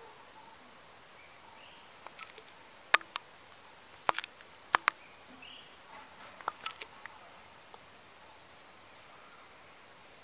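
Steady high-pitched insect chorus, with a scattering of sharp clicks, singly and in quick pairs, between about two and seven seconds in.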